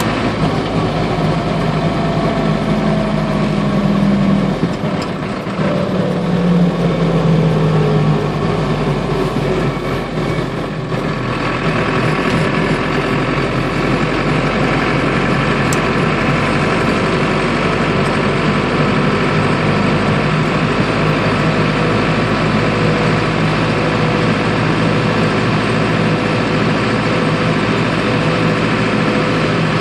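Land Rover 109's turbo diesel engine, the Td5 five-cylinder from a 2002 Defender, running as the vehicle drives along, heard from inside the cab. The engine note falls and dips briefly about five seconds and again about ten seconds in, then holds steady.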